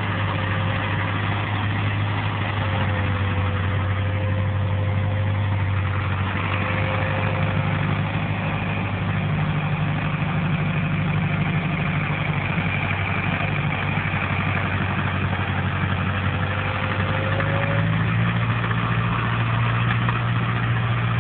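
SAME Centauro tractor's diesel engine running steadily as it pulls a four-row Pigoli planter across the field, getting a little louder as it comes close near the end.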